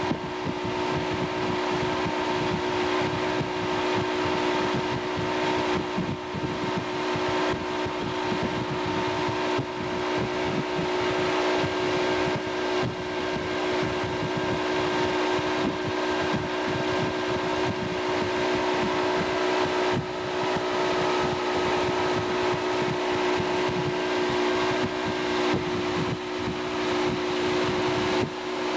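Motorboat engine running steadily at speed while towing a tube, a constant drone, with wind buffeting the microphone.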